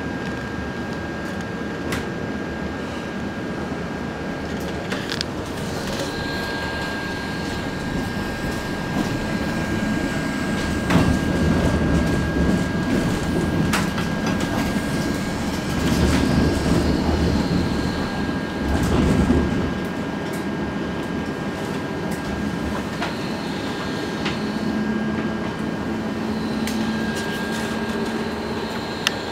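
Helsinki city tram running along its rails, heard from inside the car. The wheels rumble, with scattered clicks and knocks over a steady high whine. The rumble swells for several seconds in the middle.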